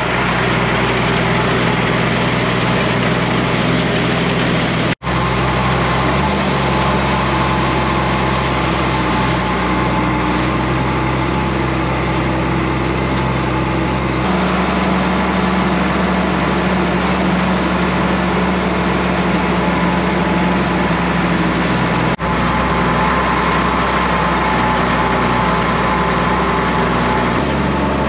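Farm tractor engine running steadily while pulling a wheel hay rake, heard from the open operator's station. The sound breaks off for an instant twice, about five seconds in and again about two-thirds of the way through.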